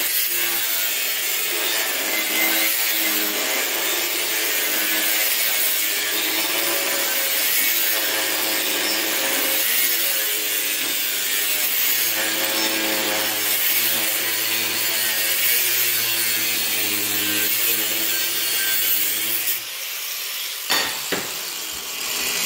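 Electric angle grinder with a thin cut-off wheel cutting through steel plate: a steady, harsh, high-pitched grinding that stops about twenty seconds in, followed by a few knocks.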